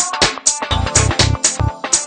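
Electronic music with a steady, driving beat: sharp bright percussion hits about four times a second over a repeating pattern of deep bass notes.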